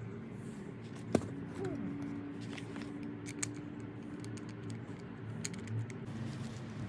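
A few sharp metallic clicks and clinks as a cast-iron lathe tailstock with its drill chuck is handled and turned over by hand, the loudest about a second in, over a steady low hum.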